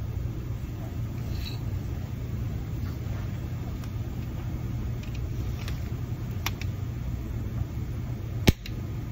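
A steady low hum, then near the end a single sharp pop as the micro spot dent repair gun's tip welds onto the steel panel. A pop like this is typical of a little E-coat or paint still left on the steel.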